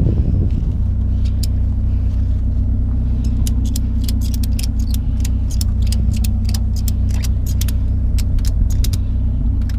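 A vehicle engine idles steadily with a low rumble. Over it, from about a second in until about nine seconds in, comes a long run of quick, sharp metallic clicks as the scrap load is tied down.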